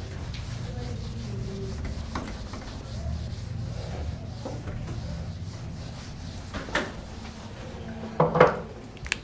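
A whiteboard duster rubbing back and forth across a whiteboard, erasing the writing. A brief voice is heard twice near the end.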